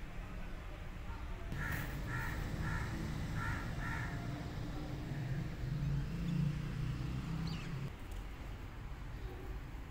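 A crow cawing about five times in quick succession, between about one and a half and four seconds in, over a low steady rumble that is loudest about six seconds in.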